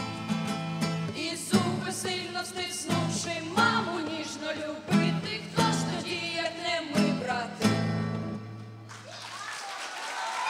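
A song with acoustic guitar strumming and singing, ending on a held low chord about nine seconds in. Applause starts as the music stops.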